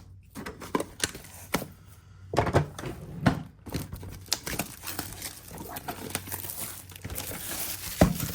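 A Pokémon TCG Elite Trainer Box being opened and handled: plastic wrapping crinkling and tearing, and cardboard lid and contents knocking and tapping at irregular moments. A sharper knock comes just before the end.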